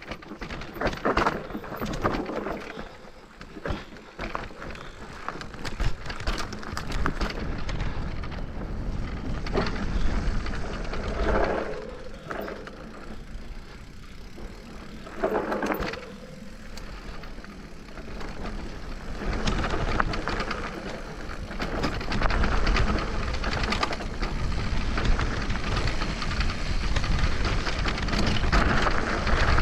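An electric trail bike riding over a rough trail: tyres crunch over gravel, the bike rattles and knocks, and wind buffets the action-camera microphone. It grows louder and rougher about two-thirds of the way in.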